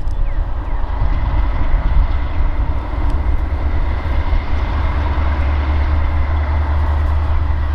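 Diesel locomotive of a slow-moving ballast work train running: a steady low rumble with a faint steady whine above it, a little louder in the second half.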